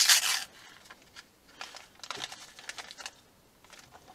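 A packet of baking powder torn open with one short, loud rip, then rustled and crinkled as it is emptied over a plastic measuring jug, with light scraping sounds in the middle.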